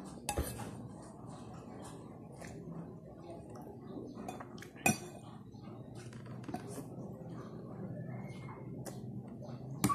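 Metal spoon and fork clinking and scraping against a plate while eating, with many light clicks and three sharper clinks: just after the start, midway, and at the end.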